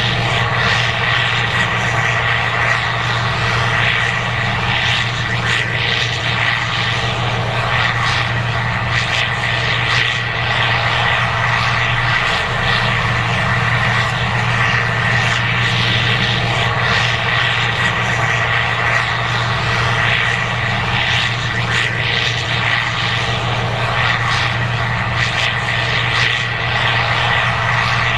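Case IH 2188 Axial Flow combine running steadily while harvesting corn: a constant engine drone with a steady high whine over the noise of the machinery.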